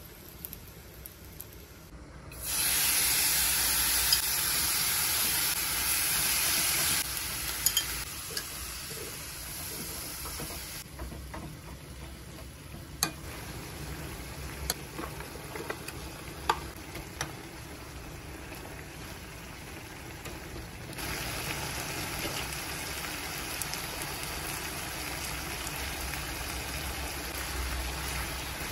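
Sliced pork and onion stir-frying in a hot nonstick wok: a steady sizzle, with a wooden spatula scraping and tapping against the pan. Fairly quiet for the first two seconds, then the sizzling comes in suddenly and loud. It eases off somewhat, then picks up again in the last third.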